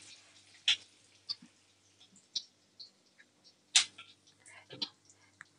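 Mustard seeds, curry leaves and green chillies spluttering in hot oil in a kadai: about six separate sharp pops spread over a few seconds, the loudest a little under four seconds in.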